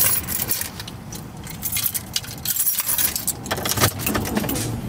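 Small metal pieces jangling and clinking in irregular runs of light rattles.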